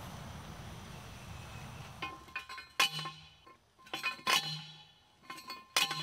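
Hand post driver striking a steel T-post, driving it into the ground: three ringing metallic clangs about a second and a half apart, starting about three seconds in, with lighter clinks between them.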